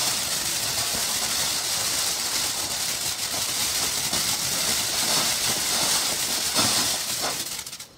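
A 60 g ground firework fountain with red fish, titanium flower and red strobe effects burning: a loud steady hiss of the spark jet, with a few sharp pops in the second half, until it burns out and cuts off just before the end.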